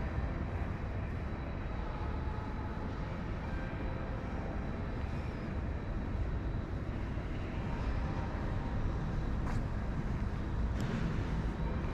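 Steady low background rumble, with a couple of faint clicks near the end.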